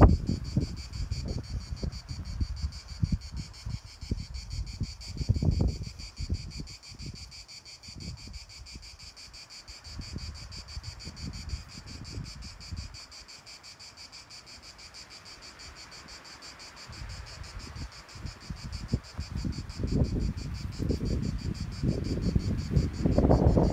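Steady chorus of insects chirring in a fast, even pulse. Wind buffets the microphone with low rumbles at the start, again about five seconds in, and over the last few seconds.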